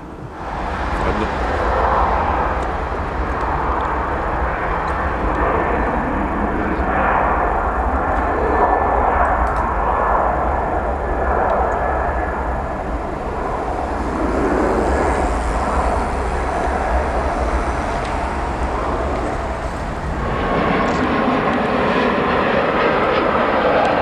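Jet airliner engines running across an airfield: a steady rumbling roar that swells and eases, with an abrupt change in the sound about 20 seconds in.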